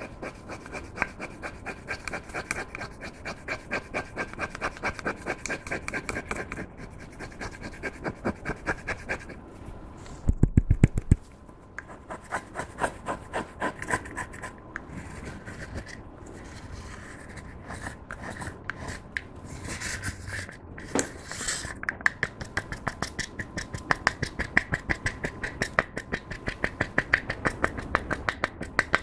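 Plastic spatula scraping and crushing pressed highlighter powder in its compact, in quick repeated rubbing strokes. A louder knock about ten seconds in.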